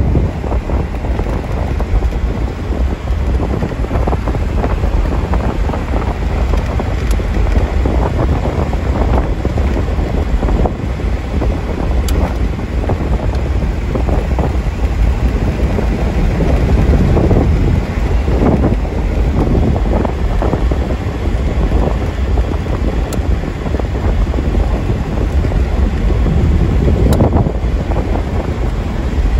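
Wind buffeting the microphone over the low rumble of a 1979 Corvette's 350 V8 and its tyres, heard from inside the cabin while cruising at steady speed.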